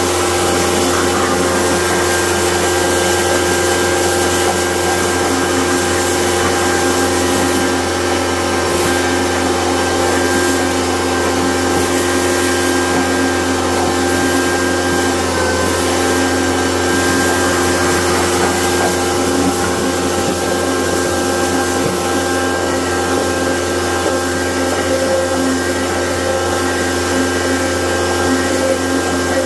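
An electric motor-driven machine running steadily, with a deep hum and a constant whine of several steady tones.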